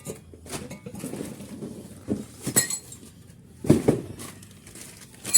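Scattered metal clinks and knocks, a few sharp strikes with a bright ring, as a motorcycle exhaust pipe and its fittings are handled while the pipe is being refitted.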